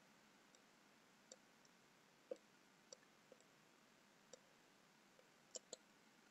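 Faint computer mouse clicks, about ten sharp single clicks at irregular intervals, with a close pair near the end, over near silence.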